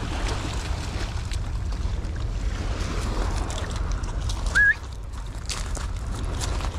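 Wind rumbling on the microphone over small waves washing onto a shingle beach, with scattered clicks and crunches of handling. A brief high squeak about four and a half seconds in is the loudest sound.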